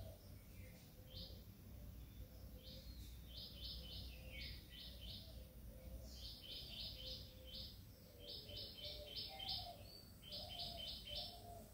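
Birds chirping faintly: quick runs of four or five short, high chirps, repeated every second or so.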